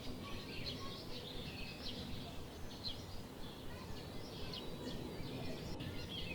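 Many small birds chirping continually over a steady low background rumble.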